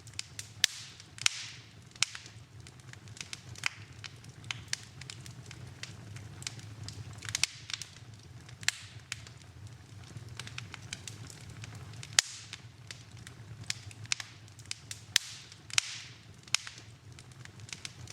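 Wood fire in a fireplace crackling, with sharp, irregular pops and snaps and a few brief hissing bursts, over a steady low hum.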